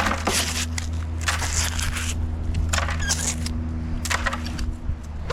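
Gritty scraping and crunching of small scrap metal and grit on a magnet-fishing magnet as it is handled, four short bursts over a steady low hum.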